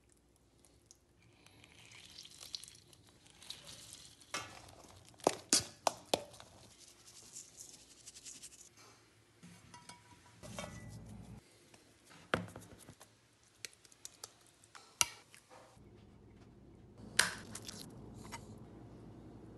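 Kitchen handling sounds: scattered sharp clinks and knocks of utensils against a metal bowl and a glass baking dish, stretches of crinkling plastic wrap, and near the end a chef's knife clicking against a cutting board as it slices boiled eggs.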